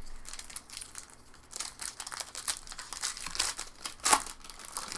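Foil wrapper of a baseball card pack crinkling and tearing as it is opened and handled: an irregular run of rustling crackles, with one sharper crackle about four seconds in.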